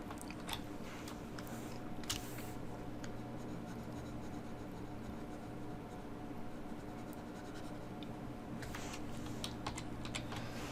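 Faint scratching and light taps of a stylus on a graphics tablet while erasing, over a steady low electrical hum.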